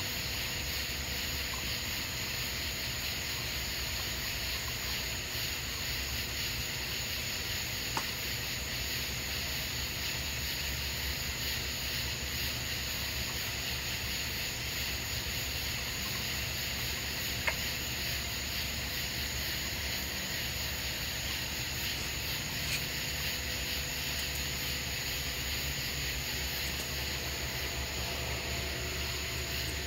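Steady hiss with a low hum from running aquarium equipment, broken by three faint clicks.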